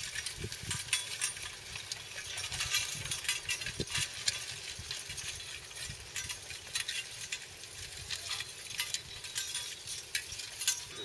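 Mule-drawn disc harrow being pulled through tilled soil: a dense, irregular run of clicks and rattles from the steel disc gang and the trace chains, over a low rumble.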